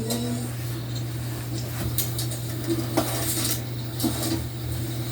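A few scattered light clicks and clatters, about a second apart, over a steady low hum.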